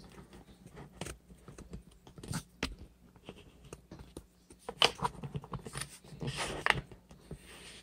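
Handling noise of a camera being moved over a workbench: scattered light clicks and knocks, the loudest about five seconds in, and a brief rustle near the end.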